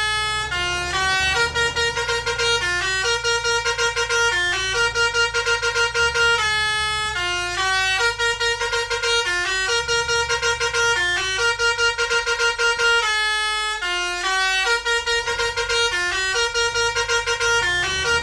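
Basuri multi-tone musical air horn on an Indonesian bus playing a repeating tune in stepping notes, with runs of quick short blasts on one note. A low rumble from the bus runs beneath it.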